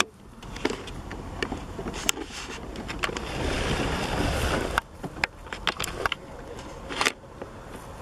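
Muffled wind rumble and camera handling noise on a microphone dulled by makeshift windproofing, with scattered clicks and knocks. The rumble swells about halfway through and cuts off suddenly near five seconds; a sharp knock comes near the end.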